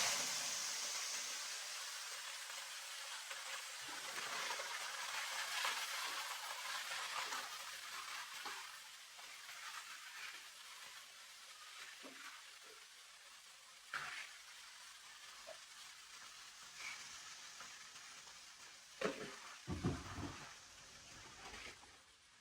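Food frying in a pan: a loud sizzle that starts suddenly as the food goes into the hot oil and slowly dies down. A few utensil knocks come near the end.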